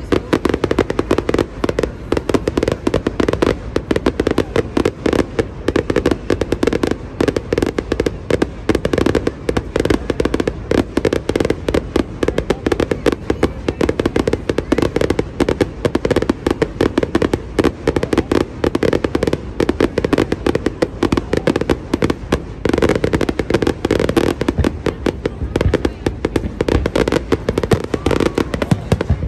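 Aerial fireworks going off in a dense, continuous barrage of rapid bangs and crackles.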